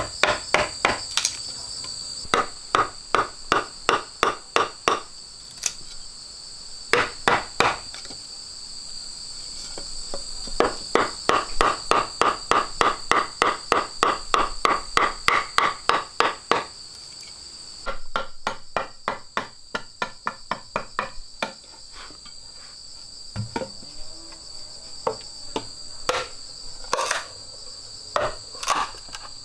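Runs of hammer strikes, about three a second, then a few scattered single knocks, over insects trilling steadily in two high, unbroken tones.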